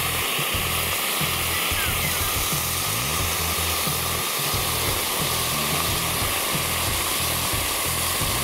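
A metal ball heated to about 1000 degrees sizzling and hissing steadily as it melts into gummy candies, under background music with a stepping bass line.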